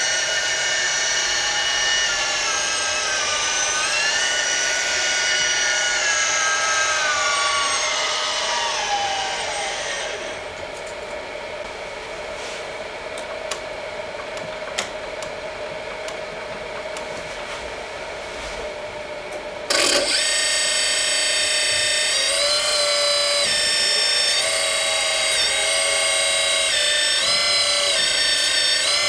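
Kabolite K350-200 RC hydraulic excavator's electric hydraulic pump whining, its pitch rising and falling as it takes load, then dropping to a quieter hum with a few sharp clicks. About two-thirds in, background music comes in abruptly and covers it.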